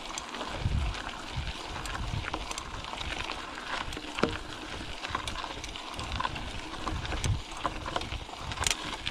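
Bicycle ride heard from a camera on the rider or bike: wind buffeting the microphone in low rumbling gusts, with scattered sharp clicks and rattles from the moving bike.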